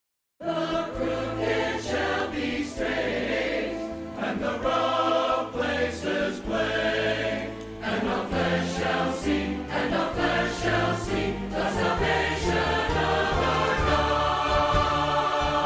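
A large choir singing with instrumental accompaniment and deep sustained bass notes, starting suddenly about half a second in.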